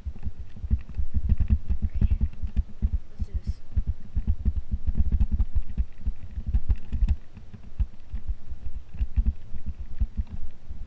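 Muffled low thumps coming several times a second in an uneven rhythm: handling noise from a body-worn GoPro action camera jostled as its wearer moves about, mixed with footfalls.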